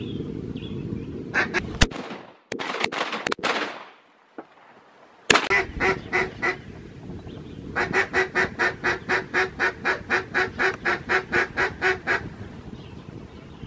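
Duck quacks: a few scattered calls, a brief lull, then a long, even run of about twenty quacks at roughly five a second. Wind rumbles on the microphone at the start.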